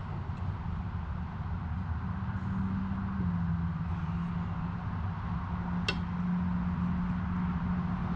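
Steady low machine hum, with a held tone that comes in about two seconds in and drops slightly a second later. A knife clinks once on an enamel plate about six seconds in.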